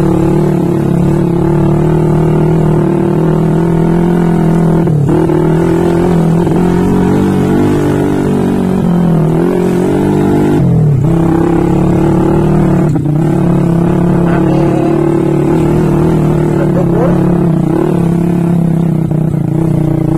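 Trail motorcycle engine running steadily under load, its pitch dipping briefly a few times as the throttle is eased and then picked up again.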